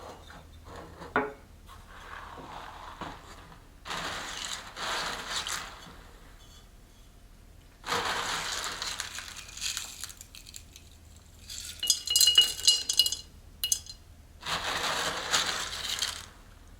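Hands handling a ceramic plant pot: three spells of rustling and scraping, and a cluster of sharp ringing clinks about twelve seconds in.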